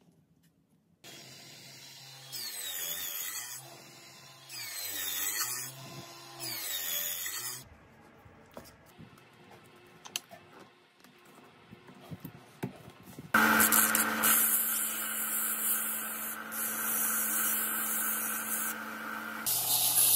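Small electric power tool working wood. Its motor runs in three short bursts, speeding up and slowing down each time, then a few light clicks of handling, then a louder, steady run that starts about two-thirds of the way in.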